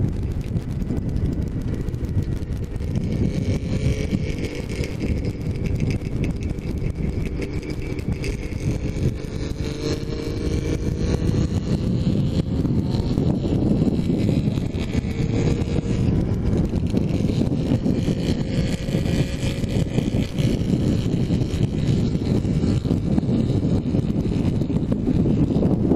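Wind buffeting a helmet-mounted camera on a moving motorcycle, a steady heavy rumble, with the bike's engine note faintly rising and falling beneath it.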